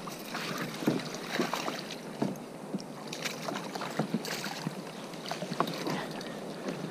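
Water splashing and sloshing at the side of a kayak as a landing net is swept through the water and a hooked fish is netted, with many small irregular splashes and knocks.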